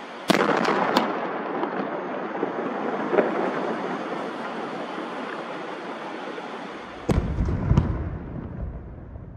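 Old dynamite detonating: a sudden blast about a quarter of a second in, its rumble and crackle rolling on and slowly fading over several seconds. A second, deeper blast follows about seven seconds in and fades as well.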